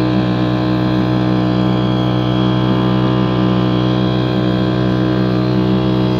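An engine running steadily at one speed, a loud, unchanging low hum with no revving.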